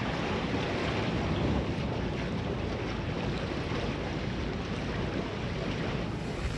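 Wind buffeting the microphone over the rush of sea water around a sailing catamaran, a steady noise with no engine heard. The sound changes about six seconds in.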